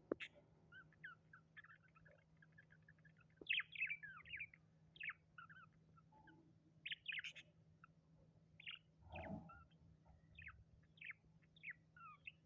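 Pet birds chirping and twittering in a quick run of short, high chirps and warbles, growing louder a few seconds in.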